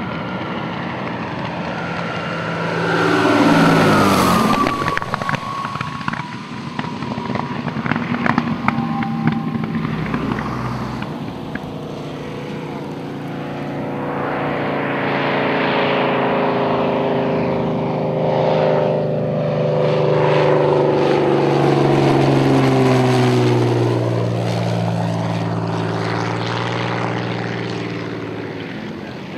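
Second World War fighters, a P-51 Mustang and Spitfires, flying low past with their V12 piston engines running loud. A few seconds in one passes close and its engine note drops sharply in pitch; later another fighter's engine swells and then fades as it goes by.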